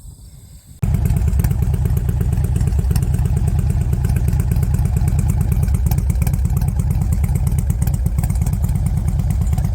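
2009 Harley-Davidson Electra Glide Classic's 96-cubic-inch V-twin, with an Andrews 48 cam, running steadily through a true dual exhaust; the sound begins suddenly about a second in.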